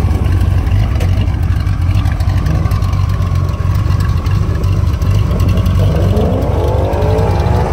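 Single-turbo air-cooled flat-six of a 1988 Porsche 911 Carrera idling steadily, a loud low rumble from the exhaust.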